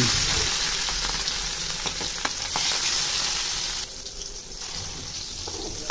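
Hilsa fish steaks sizzling as they fry in hot oil in a steel wok, with a few small crackles. The sizzle fades gradually and drops quieter just under four seconds in.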